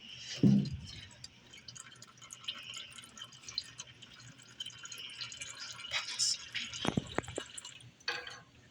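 Old engine oil dripping from a tractor's crankcase into a drain pan, with scattered light metallic clicks and knocks from tools working the oil filter cover. There is a sharp thump about half a second in and a cluster of knocks near the end.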